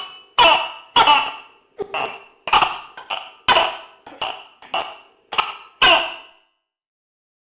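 Tokay gecko calling: a quick run of sharp calls, about two a second, each fading away fast, ending a little after six seconds in.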